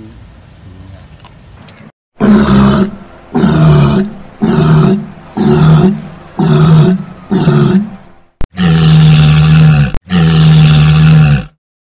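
Seal calling: six loud, deep, moaning calls about a second apart, then two longer held calls.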